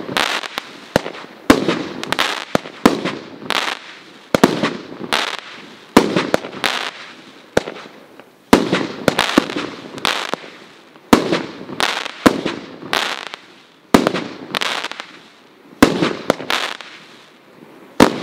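Elite Fireworks' Poison Pogo 200-gram consumer fireworks cake firing its 1-inch tubes: a rapid run of sharp reports, mostly one or two a second, each followed by a short fading crackle as the shells break.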